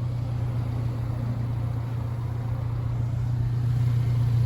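1999 Subaru Sambar mini truck's small 660 cc four-cylinder engine idling steadily, a constant low hum.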